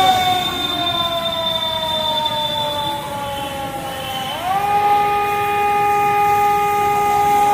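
A siren wailing. Its pitch sinks slowly for about four seconds, then sweeps quickly back up and holds steady.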